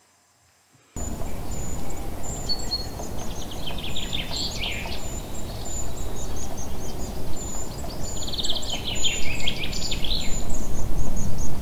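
Outdoor nature ambience that starts about a second in: a steady wash of noise with insects chirping in a regular high pulse, and a bird singing two phrases of rapid notes that fall in pitch at their ends.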